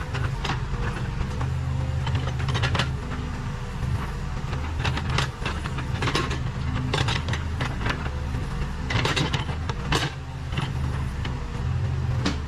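Case 580 Super K backhoe loader's diesel engine running steadily under work, with frequent clanks and rattles from the machine and its bucket as it works the soil.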